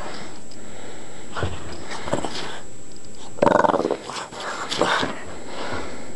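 A Boston terrier vocalizing in a series of about five short sounds, the loudest about halfway through.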